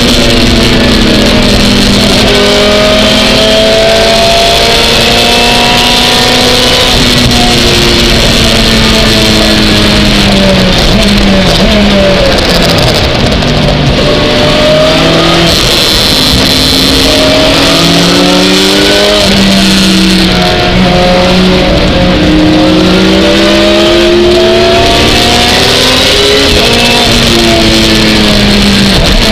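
Lotus Exige GT3 race car's engine heard loud from inside the cockpit, its pitch climbing and dropping again and again as it revs up through the gears and falls back on upshifts and braking, over a steady hiss of wet road and wind.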